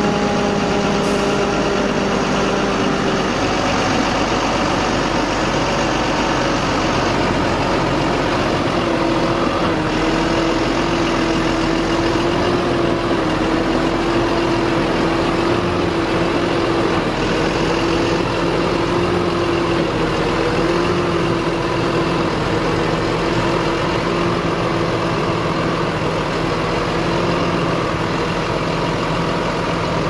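New Holland T7.215 S tractor's six-cylinder diesel engine running steadily at low revs while moving slowly with a tipper trailer. Its note dips slightly in the first few seconds, then holds even.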